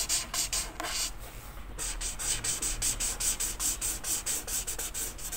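Alcohol marker nib rubbing back and forth on paper in quick, even strokes, about five or six a second, with a short pause about a second in: the scratchy sound of filling in an area of colour.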